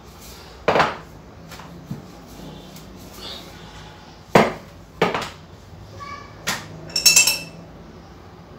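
A wooden rolling pin and kitchen utensils knocking and clinking on a marble countertop while chapati dough is being rolled: five or six separate sharp knocks, the last ones ringing like a metal spoon against glass.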